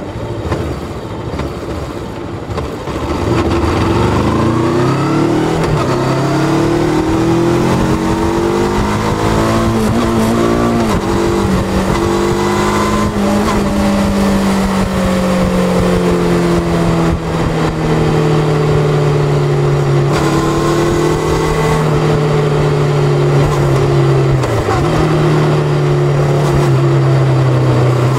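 Bristol Venturi 500 motorcycle engine, low at first, then revving up steadily over several seconds from about three seconds in. It holds high and slowly eases off, with a short dip in revs late on.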